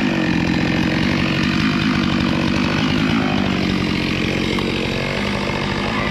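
Chainsaw running steadily at high speed, cutting a piece of wood.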